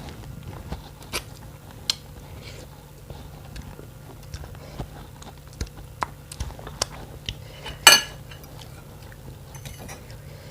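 Close-miked eating of noodle soup with bones: chewing and biting, with scattered sharp clicks and smacks and one louder burst about eight seconds in.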